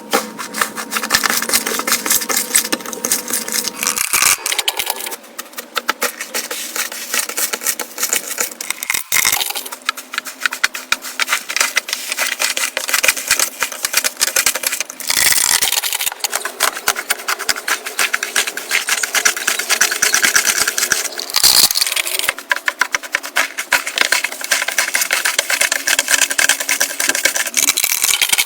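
Slime being squished and kneaded by hand, giving dense crackling and popping of many tiny bubbles and clicks. The texture changes abruptly about four times as one slime gives way to another.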